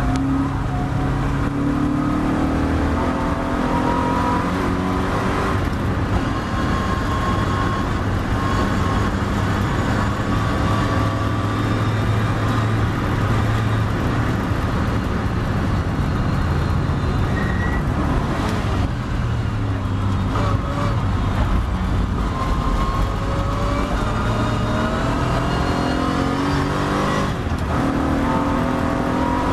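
Triumph TR7 race car's engine heard from inside the car, running hard under full throttle, its pitch climbing and dropping back at each gear change. Partway through and again near the end it backs off as the car slows for corners.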